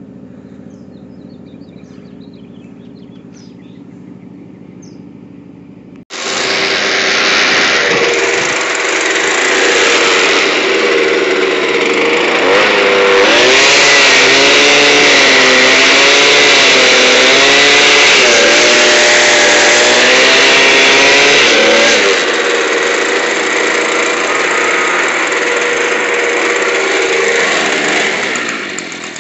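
A small gasoline engine starts running loud and hissing at high revs about six seconds in, its pitch wavering up and down as the throttle changes, then eases back near the end. Before it comes in there is only a quieter steady hum.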